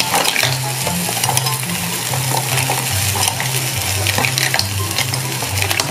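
Green mussels in their shells sliding off a metal spoon into a hot pan of shrimp, sizzling, with shells clicking and clattering against one another and the pan.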